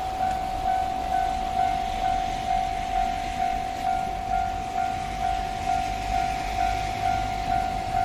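Japanese level-crossing electronic alarm bell ringing its kan-kan tone, pulsing a little over twice a second: the crossing is closed for an approaching train.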